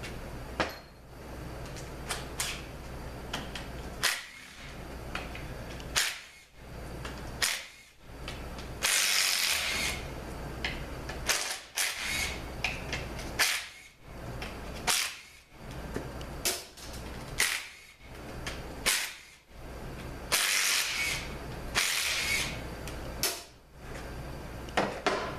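Bolts being taken out of a cover on a 41TE (A604) automatic transmission with a power tool. Sharp metallic clicks and knocks run throughout, with two longer hissing bursts from the tool, one about a third of the way in and one about four-fifths of the way in.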